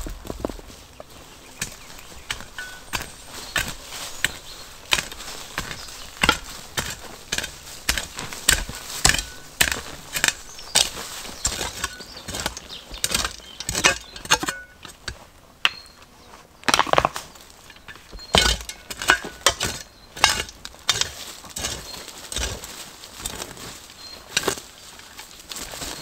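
Irregular knocks and cracks, at times several a second, with rustling between them: hands-on work building a bushcraft shelter.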